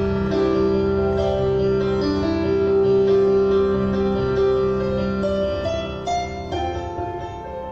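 Keyboard played in a piano-like tone: sustained chords over a held bass, with a melody of single notes moving above them, softening near the end before a new chord is struck.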